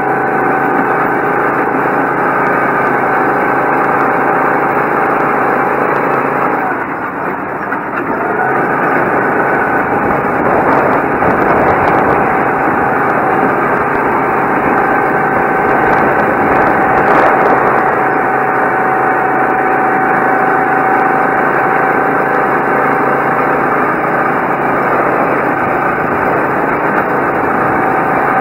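Go-kart engine running under throttle, close up from the kart itself, a steady high-pitched drone. About seven seconds in it dips briefly and then picks back up.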